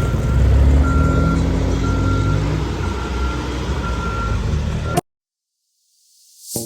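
Reversing alarm of a Caterpillar 420D IT backhoe loader beeping about once a second over its diesel engine running. The sound cuts off abruptly about five seconds in, and music swells up near the end.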